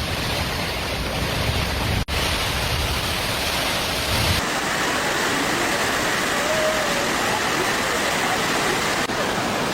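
Steady rushing noise of storm water from heavy rain and flooding, with abrupt cuts about two and four and a half seconds in.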